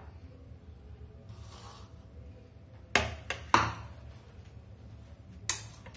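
Kitchen handling sounds: a brief rub, then three sharp knocks in quick succession about three seconds in and another near the end, as the glass ketchup bottle is set down on the stone counter. A low steady hum runs underneath.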